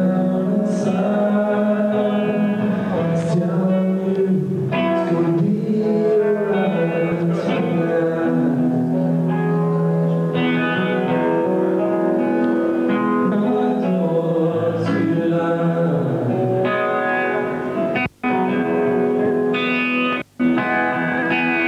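Music: a song with singing and guitar, held notes moving from one pitch to the next, cutting out briefly twice near the end.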